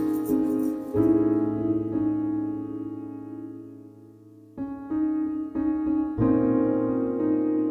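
Background music on a piano-like keyboard. A chord is struck about a second in and fades slowly over about three seconds, then fresh chords come in from about four and a half seconds on.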